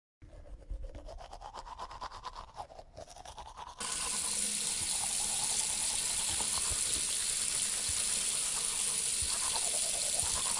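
Toothbrush scrubbing against teeth in quick, scratchy strokes; about four seconds in, a steady rush of water starts, like a tap running into the sink, and covers the brushing.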